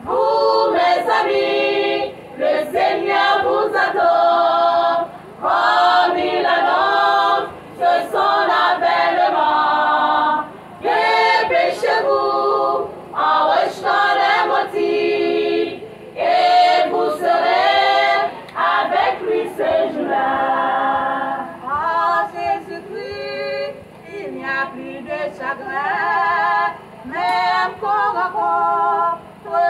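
Women's choir singing in phrases of a second or two, with short breaks between the lines.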